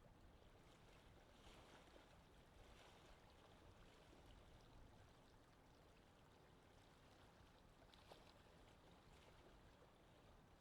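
Near silence: a faint, steady underwater water hiss with a few faint crackles.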